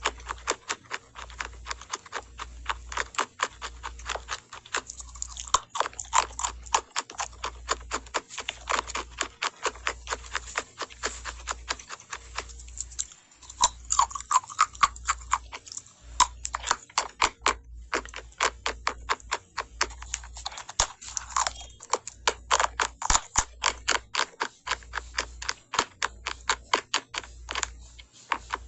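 Close-up crunching and chewing of hard cornstarch chunks: a dense run of crisp, rapid crackles, broken by short pauses about 13 and 18 seconds in.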